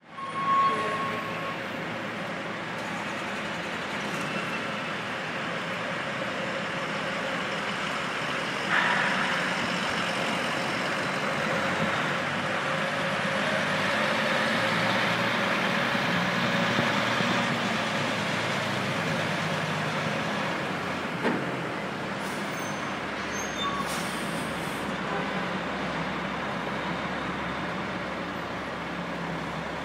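Semi-truck diesel engines running as tractor-trailers loaded with boats move slowly past. A sudden hiss comes about nine seconds in, and a sharp knock comes a little past twenty seconds.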